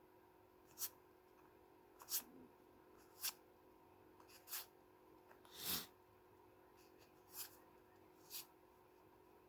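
A person sniffing sharply in short bursts, about one a second, during an allergy attack, with a longer, fuller sneeze-like burst about six seconds in.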